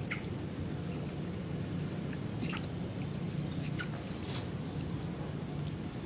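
A steady, high-pitched insect drone of crickets or cicadas, with a few short chirps about a second apart early on and again around the middle.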